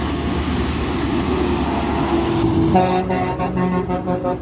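A passing tractor-trailer hauler's diesel engine and tyres running in a steady rumble, then a truck horn honking in a quick string of short toots from about three seconds in.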